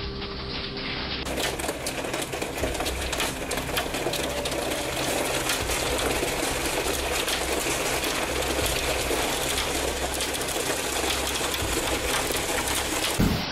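Hail pelting a corrugated roof: a dense, rapid clatter of countless small hailstone impacts, steady throughout, starting about a second in.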